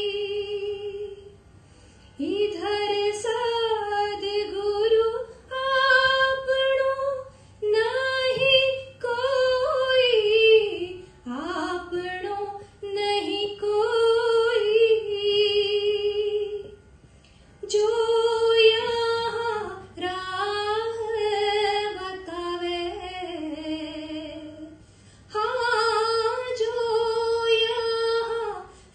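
A woman singing a devotional bhajan unaccompanied, in held, wavering phrases of a few seconds each with short breaths between them.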